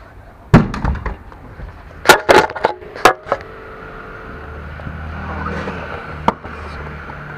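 Sharp knocks and bumps of a small camera being handled and set down, a handful of them in the first three seconds and one more near the end, with a low steady hum in the second half.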